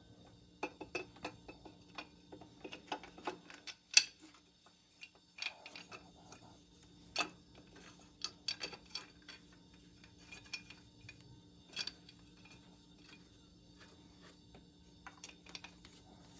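Irregular metallic clinks and knocks of a metal mounting plate and its bolts being handled and fitted against the engine, with the loudest knock about four seconds in.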